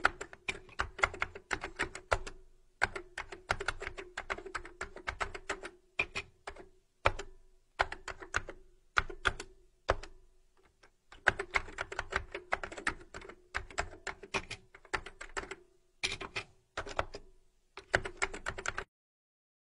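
Computer keyboard typing in quick runs of keystrokes broken by short pauses, with a low steady hum that comes and goes with each run of typing.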